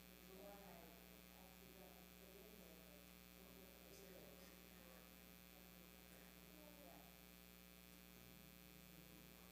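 Near silence: a faint steady electrical hum in the sound feed, with faint distant voices now and then.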